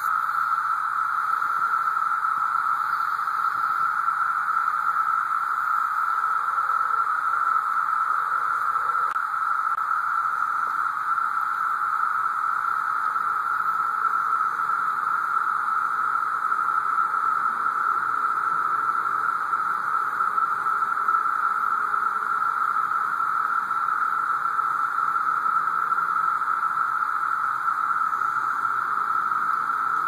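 Dense chorus of periodical cicadas (Brood II, 17-year cicadas) singing all together: one steady, even drone with no breaks.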